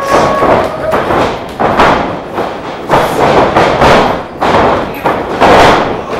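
A run of loud thuds and slaps, about one every half second and not evenly spaced, as wrestlers' bodies and feet hit the canvas of the wrestling ring.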